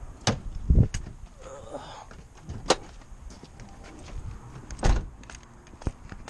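Car door being handled: the outside handle and latch click as the driver's door of a 1994 Acura Integra is pulled open, followed by several more sharp clicks and thumps over a few seconds.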